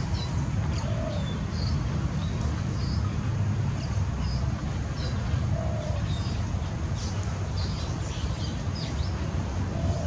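Short, high animal chirps, about a dozen scattered through, with a few fainter lower calls, over a steady low rumble.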